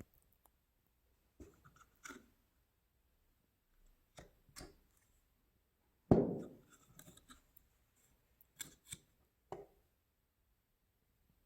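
Scattered light clicks and taps of small objects being handled, with one louder knock about six seconds in.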